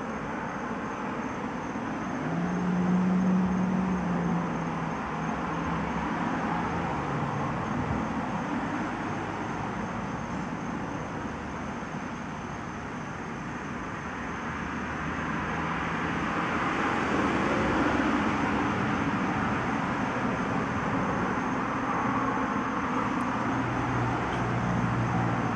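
Road traffic noise: a steady rush of passing vehicles with a low engine hum. It swells about three seconds in and again past the middle.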